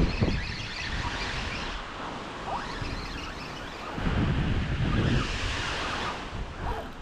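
Small waves breaking on a sandy beach, with wind buffeting the microphone and gusting harder about four seconds in.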